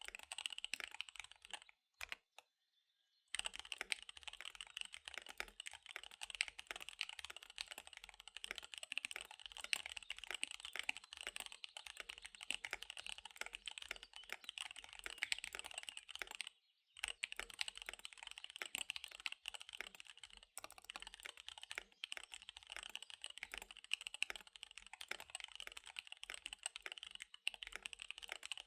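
Fast typing on a KBD75 V3 mechanical keyboard with SP-Star Dark Magic Girl tactile switches and DSA keycaps: a dense, rapid stream of keystrokes that stops briefly about two seconds in and again a little past halfway.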